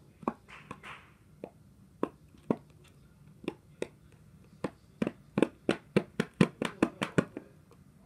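A series of short, sharp clicks or taps, a couple a second at first, then coming fast, about six a second, over the last few seconds.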